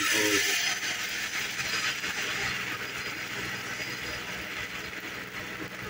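Uttapam batter sizzling in hot oil on an iron griddle. The hiss is loudest at first and slowly dies down as the batter is spread out.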